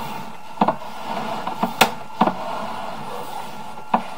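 Sewer inspection camera's push cable being pulled back out of the drain line, giving about half a dozen irregular knocks and clicks over a steady hiss, the loudest knock a little under two seconds in.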